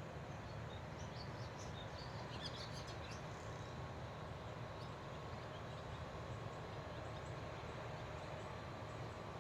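Steady low background rumble, with a small bird chirping in quick short notes from about one to three seconds in.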